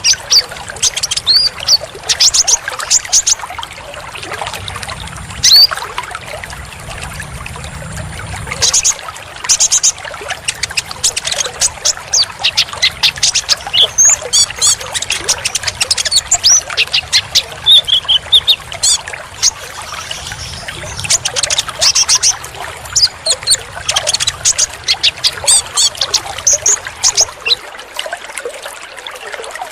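Kolibri ninja (konin) sunbird song: rapid, high, sharp chirps and twitters in quick runs, over a steady trickle of running water. A low hum underneath cuts off near the end.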